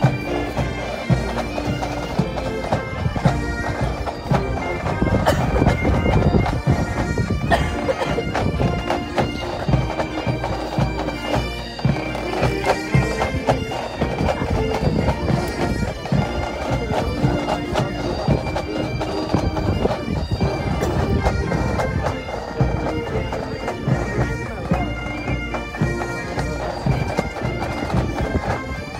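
Pipe band playing a march on bagpipes and drums: the pipes' melody runs over their steady drones, with a constant rattle of drumming underneath.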